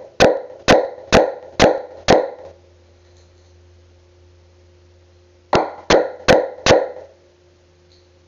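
Hammer blows on a wood chisel cutting into a wooden plank: five strikes at about two a second, a pause of about three seconds, then four more, each a sharp knock that rings briefly.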